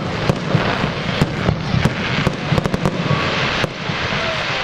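Fireworks display with shells launching and bursting in the air: a string of about a dozen sharp bangs, several in quick succession around the middle.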